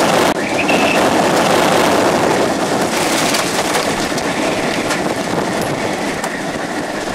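Loud steady rush of wind and driving rain, with fine patter running through it, easing a little toward the end.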